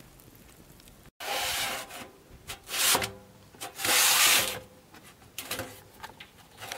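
Metal loaf pan scraping across the floor of a wood-fired oven built from a steel barrel as it is pulled out, in several rasping pulls, the longest about four seconds in.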